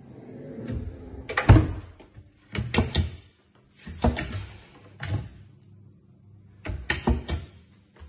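Kitchen drawers and cabinet doors being pulled open and pushed shut by hand. A fridge drawer slides closed with a thump about a second and a half in, the loudest knock. About four more clunks of doors and drawers follow.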